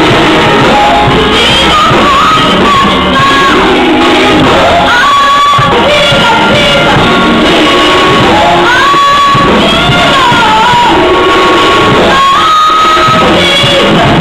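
Loud live gospel praise-and-worship singing by several singers on microphones over a music accompaniment, with long held notes and shouted lines.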